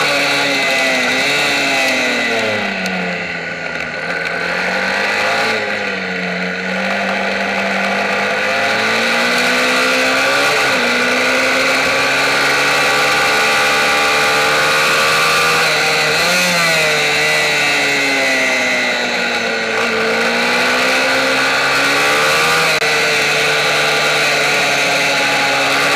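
Onboard sound of a Kayo MiniGP race motorcycle's engine revving hard. The pitch drops a few seconds in and again about three quarters through as the rider brakes and shifts down for corners, with a quick rev blip just past the middle, then climbs again under throttle.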